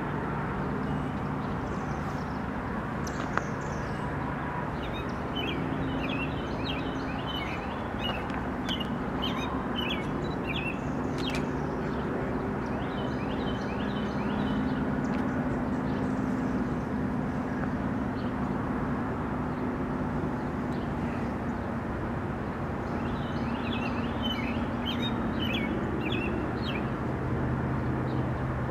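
Diesel locomotives of an approaching freight train droning steadily, their low engine tones slowly shifting, while birds chirp in short bursts over the top.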